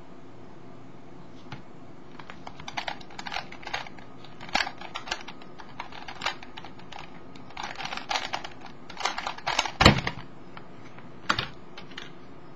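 Skewb puzzle being turned at speed: rapid irregular clusters of plastic clicks and clacks from its pieces turning during a speedsolve. The clicking ends with a single loud thump a little under ten seconds in, as the solve is stopped.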